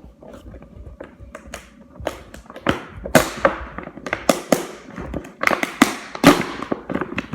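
Plastic toy packaging crackling and crinkling with clicks and knocks as a toy is pulled and worked out of its box, getting busier and louder about three seconds in.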